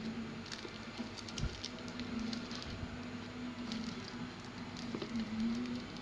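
Smartphone retail box being handled and opened by hand: scattered light taps, clicks and rustles of cardboard and packaging, over a steady low hum.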